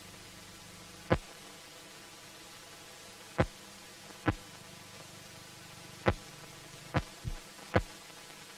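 A steady low hum with about seven short, sharp pops at uneven intervals, several of them bunched near the end.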